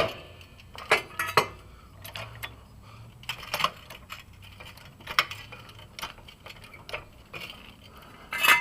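Hydraulic floor jack being pumped to raise a car: irregular metallic clicks and clinks from the handle and jack mechanism, roughly one a second.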